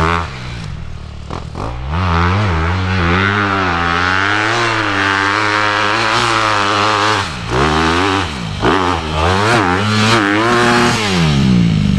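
A 450 four-stroke dirt bike engine ridden hard, its pitch rising and falling as the throttle is rolled on and chopped through the gears. It drops off sharply about a second in and again around seven and a half and eight and a half seconds in before pulling back up.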